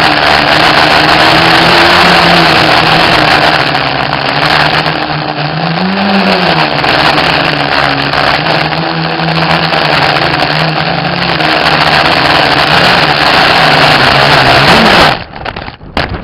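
FPV quadcopter's electric motors and propellers whining over loud rushing air noise, the pitch wavering with throttle and swelling up and back down about six seconds in. About fifteen seconds in the motor sound cuts off suddenly, followed by a few scattered clattering knocks, the sound of a crash that leaves the quad broken.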